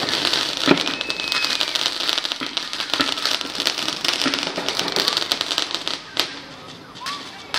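Fireworks crackling densely, a rapid rattle of tiny pops that thins out about six seconds in, with one sharp crack as it dies down.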